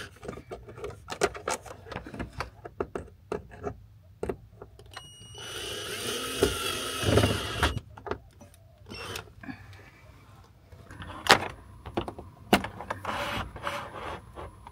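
Cordless drill running for about three seconds, starting about five seconds in, as it drives a screw for a cable clip into the wooden ceiling of a van. Clicks and knocks from handling the drill and the clip come before and after.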